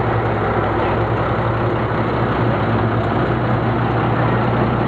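Vintage fire truck's engine running steadily at low speed, heard from its open cab, a deep steady hum.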